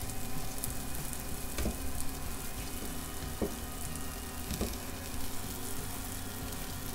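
Jackfruit cakes frying in a pan of vegan butter: a steady sizzle, with a few faint knocks along the way.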